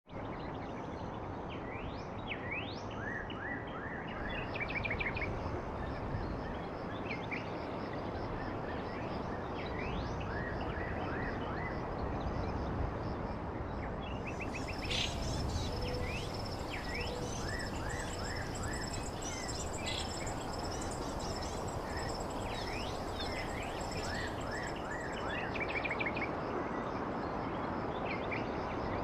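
Nature ambience of many small birds chirping in short rising notes over a steady background hiss, with a high, steady insect-like buzz growing stronger from about halfway through.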